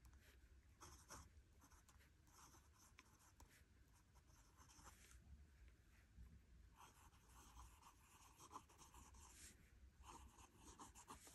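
Faint scratching of a Lamy extra-fine fountain pen nib on Rhodia paper as words are written, in short runs of strokes with brief pauses between them.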